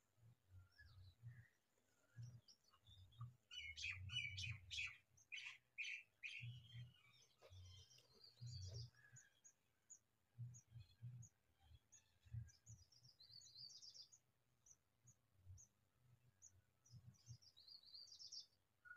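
House sparrows chirping: a quick run of about eight loud chirps a few seconds in, then scattered fainter high cheeps in the middle and near the end, over low muffled bumps.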